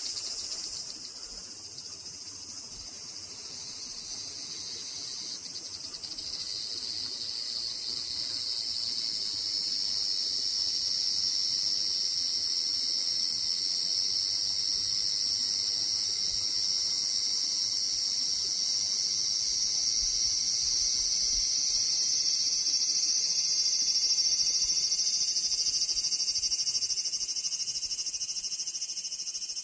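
Large brown cicada (abura-zemi) calling: a continuous, high, sizzling buzz that swells in loudness over the first ten seconds or so and then holds steady.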